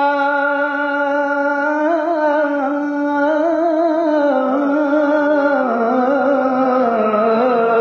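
A man singing an unaccompanied naat, holding one long note that stays steady at first, then wavers in small ornamental turns and steps down in pitch toward the end.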